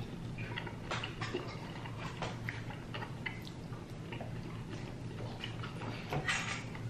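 Eating sounds at a table: scattered small clicks and taps from chewing and from cutlery or dishes, with a short louder crunch or rustle about six seconds in. A low steady hum runs underneath.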